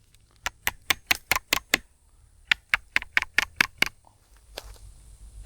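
Hammer tapping nails into wood, two quick runs of about eight light strikes each, roughly five a second, with a short pause between them.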